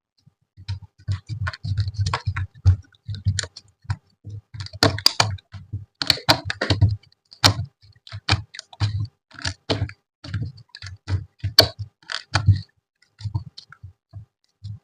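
Slime being squeezed and poked by hand: an irregular run of sticky clicks and small pops, each with a soft low thud, several a second.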